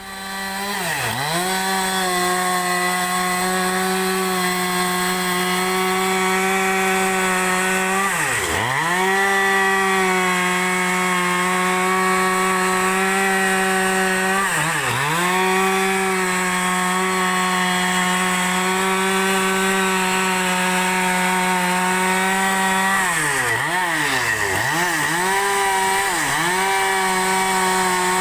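Two-stroke chainsaw revving up and running at high, steady revs while ripping a large log lengthwise. Its pitch dips sharply and recovers several times, a few of them close together near the end.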